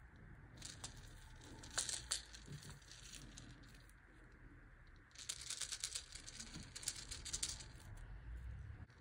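Faint handling noise of a vinyl toy figure and a clear plastic accessory being turned in the hands: crinkling and small plastic clicks in two spells, about a second in and again from about five seconds in.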